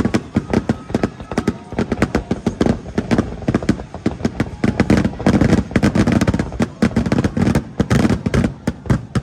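Fireworks display going off in a rapid, unbroken string of bangs and crackles, several a second, with deep booms underneath.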